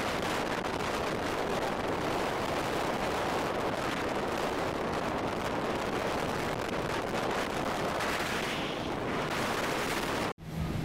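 Steady, dense rushing roar that cuts off abruptly near the end.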